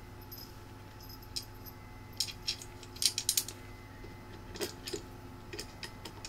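Small metal screws and the plastic fan frame being handled against 3D-printed drive mounts: scattered light clicks and clinks, several in quick succession about three seconds in.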